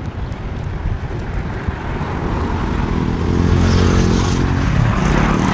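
A motor vehicle drives past on the road, its engine building from about two seconds in, loudest near four seconds, then dropping slightly in pitch as it goes by. Wind rumbles on the microphone.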